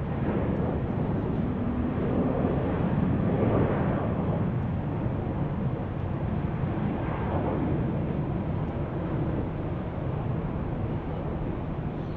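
Airbus A319 jet airliner's engines running at low approach power as it passes close on short final and flares over the runway: a steady jet noise that swells a little twice.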